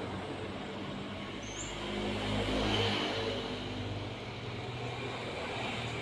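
Motor vehicle engine passing at a distance: a steady low hum that swells about two to three seconds in and then fades. A single brief high chirp about a second and a half in.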